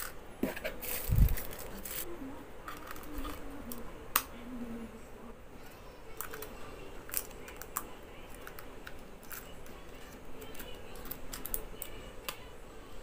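Small clicks and knocks of a Sony A6000 mirrorless camera being handled, its battery door on the base opened and a battery fitted. A louder dull thump comes about a second in, and a sharp click a few seconds later.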